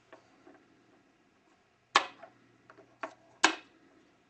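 Magic cups being set down on a table: three sharp knocks, the first about two seconds in and the last two close together, the middle one weaker.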